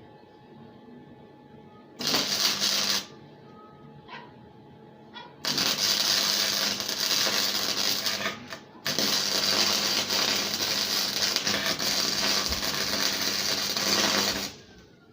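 Electric arc welder laying welds in crackling bursts: a short burst about two seconds in, then two long runs with a brief break in the middle.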